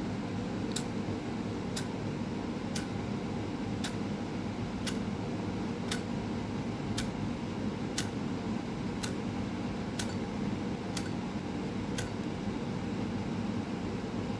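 Steady low room hum, like a fan or air conditioner, with a light sharp tick about once a second that stops near the end.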